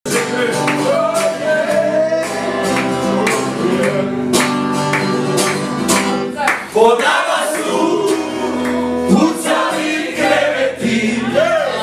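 Live singing by several voices to a strummed acoustic guitar.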